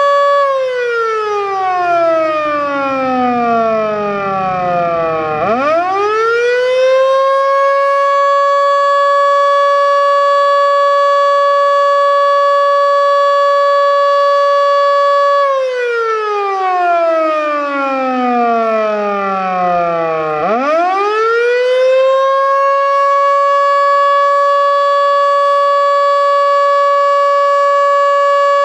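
Federal Signal Model 2 electromechanical outdoor warning siren sounding a wail. A loud steady tone slowly winds down in pitch over about five seconds, then quickly spins back up and holds. This happens twice.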